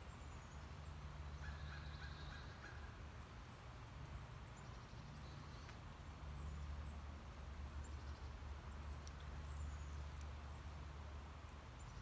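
Faint woodland ambience: a low steady drone that swells in two long stretches, with a short fast trill early on and a few faint high bird chirps.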